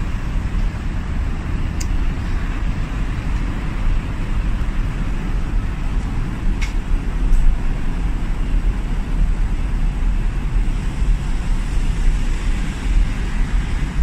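Steady background rumble of distant road traffic, heaviest in the low end, with a faint click or two.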